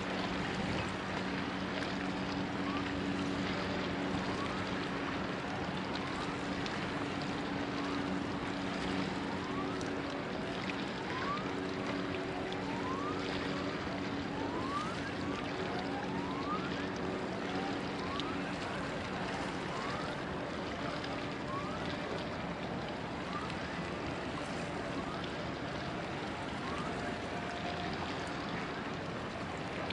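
Steady rush of wind and heavy rain on the microphone, with a low steady hum through the first half. A string of short rising chirps comes about once a second.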